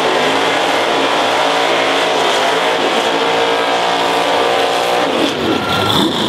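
Drag car's engine held at high revs during a burnout, with the rear tyres spinning. About five seconds in, the revs fall away and rise again.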